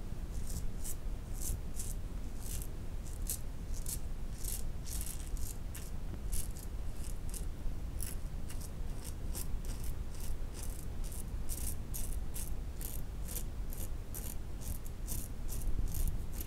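Yunost safety razor scraping through lathered stubble on the upper lip in short, quick strokes, two to three a second, each a brief rasp.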